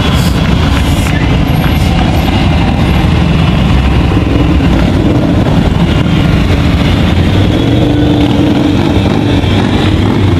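A procession of motorcycles riding slowly past, many engines running together in a loud, steady low drone.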